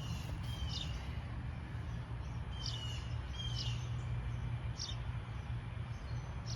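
Birds chirping: about five short calls spread across a few seconds, each a sharp high note with a short lower falling tail, over a steady low rumble.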